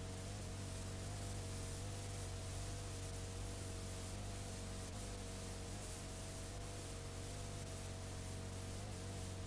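Steady hiss and low mains hum from a blank stretch of videotape playing back, with two faint tones that wobble slightly in pitch.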